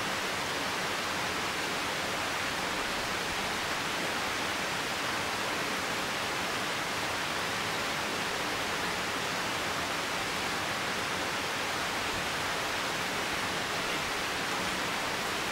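Rushing water of a rocky mountain stream: a steady, even rush with no breaks.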